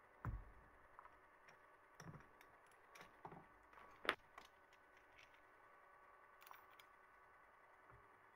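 Near silence with a few faint clicks and a soft knock: an SH20N micromotor handpiece and its small metal parts being handled on a rubber work mat, with the sharpest click about four seconds in.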